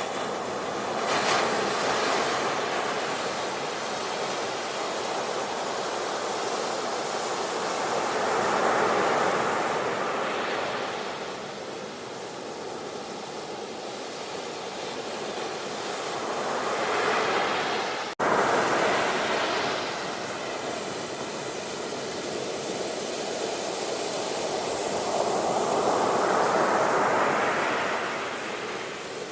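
Sea waves breaking and washing up the shore, the surf swelling and fading about every eight to nine seconds. A momentary dropout about two-thirds through cuts the sound for an instant.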